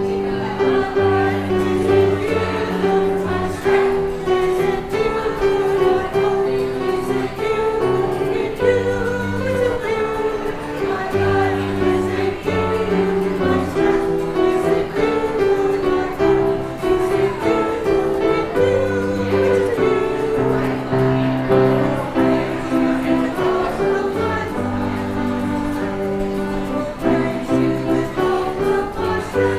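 Church choir singing with instrumental accompaniment, held low bass notes changing every couple of seconds under the melody.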